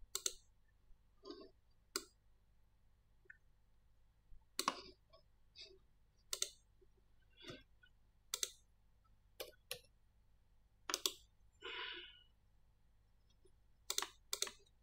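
Computer mouse buttons and keyboard keys clicking, about ten separate sharp clicks spaced irregularly one to two seconds apart.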